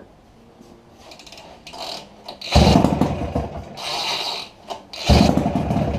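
Two pulls on the 440cc two-stroke snowmobile engine's recoil starter. Each is about a second of rapid ratcheting whir as the engine turns over without firing.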